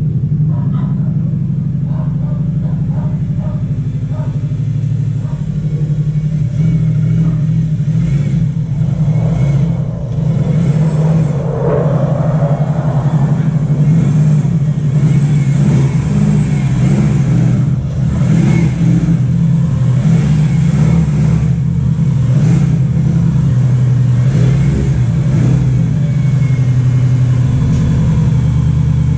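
Subaru car engine running steadily.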